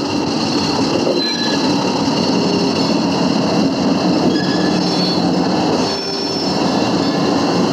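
Pair of diesel locomotives hauling a freight train past, engines running, with intermittent high-pitched squeal of steel wheels on the rails over steady rolling noise.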